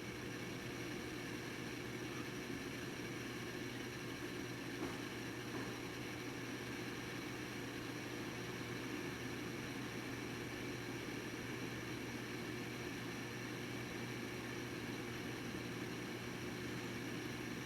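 Asus UL20A notebook running as it boots: a steady, faint whir and hum with a light hiss, and a single small tick about five seconds in.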